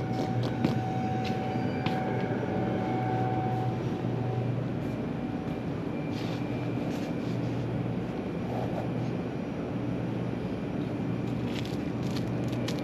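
Steady low engine and road rumble heard inside a vehicle, with a hum that swells and fades every second or two and a few faint clicks.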